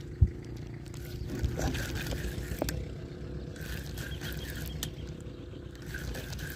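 Spinning rod and reel being handled and wound in on a biting fish: a steady low rumble, a sharp thump just after the start and a few separate sharp clicks.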